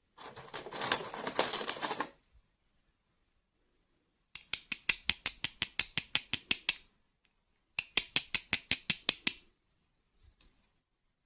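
Crinkling of plastic toy packaging for about two seconds. Then two runs of rapid, evenly spaced clicks from a plastic toy, about eight a second, each lasting a couple of seconds.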